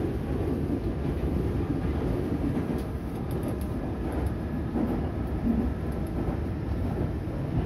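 Meitetsu 3150 series electric train running, heard inside the passenger car: a steady low rumble.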